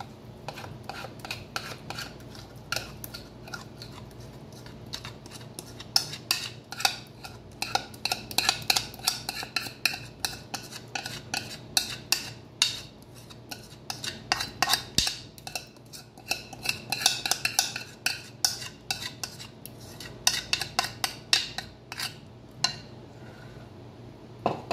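Rapid, irregular clinks and scrapes of a utensil against a ceramic dish and the rim of a pot, as blended almond paste is scraped out of the dish into sugar syrup. The clinks are sparse at first, come thick and fast from about six seconds in, and thin out near the end.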